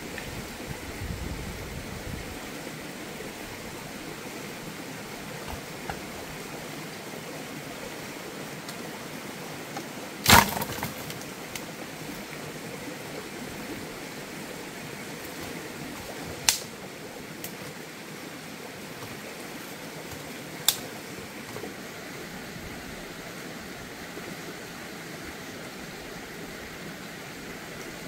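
Dry firewood sticks dropped onto the ground in a loud clatter about ten seconds in, followed later by two sharp cracks, over a steady rushing background noise.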